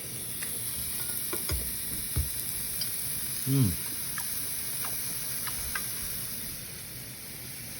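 Yakiniku meat sizzling steadily on a heated cooking plate, with scattered light clicks and a couple of soft knocks. A short falling "mm" from the taster comes about three and a half seconds in.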